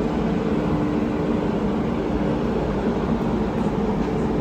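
An engine running steadily: a low, even rumble with a constant hum.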